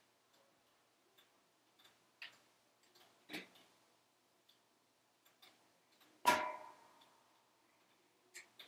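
Wood fire crackling inside a closed cast-iron wood stove: faint, scattered clicks and pops, with one loud crack a little after six seconds in that rings on briefly.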